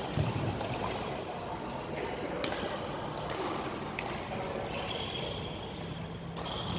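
Badminton rally: court shoes squeaking on the sports-hall floor as the players move, with a few sharp racket strikes on the shuttlecock, the loudest about two and a half seconds in.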